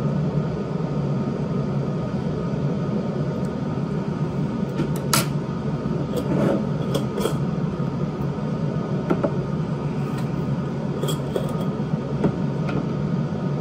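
Steady low hum with a handful of light clicks and clinks from glass jars and a lid being handled, the sharpest about five seconds in.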